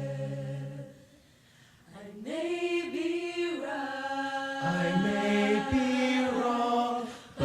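A cappella vocal group singing in harmony: a held chord stops about a second in, there is a brief pause, then the voices come back in with chords that move.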